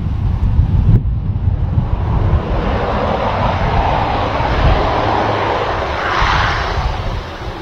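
Beechcraft 1900 twin turboprop engines and propellers running as the airliner rolls past on the ground after landing. The rushing engine sound swells in the middle and peaks a little after six seconds, over a low wind rumble on the microphone.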